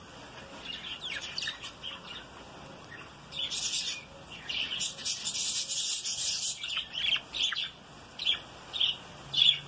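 Budgerigars chattering, with a dense warbling stretch in the middle, then a series of separate short, sharp chirps near the end.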